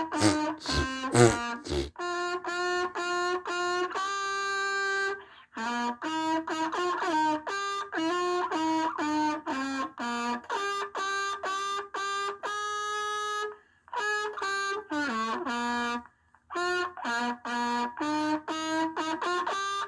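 A march melody played in short, detached notes with a brass-like tone, with a few sharp hits in the first two seconds and brief breaks between phrases.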